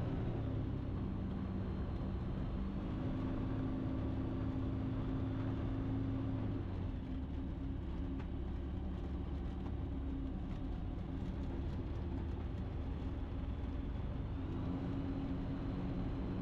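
Ikarus C42 microlight's piston engine and propeller running steadily at low taxi power. The engine note drops slightly about seven seconds in and rises again near the end.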